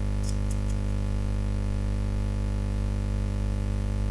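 Steady electrical mains hum: a constant low buzz with a stack of higher steady tones above it, unchanging throughout.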